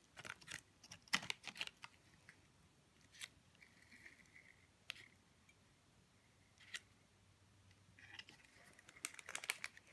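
Faint handling sounds from a small accordion book in an Altoid tin: scattered soft clicks and paper rustles as it is closed and its pages are pulled out, heaviest at the start and again near the end.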